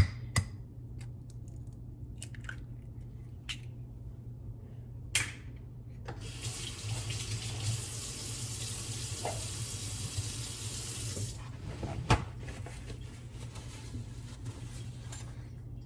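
Kitchen tap running into a sink for about five seconds, starting about six seconds in and then shut off. Sharp knocks come before it, and a single loud knock follows about a second after.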